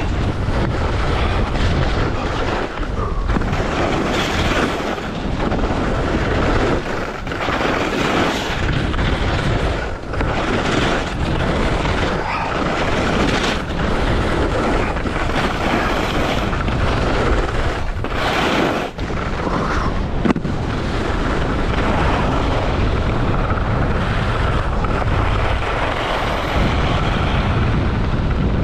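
Wind rushing and buffeting over an action camera's microphone during a ski run, a loud, steady low rumble that surges and dips, with skis scraping over snow through the turns.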